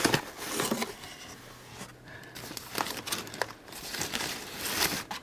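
Packing paper crinkling and rustling in irregular crackles as a wrapped camera is pulled out of a cardboard box.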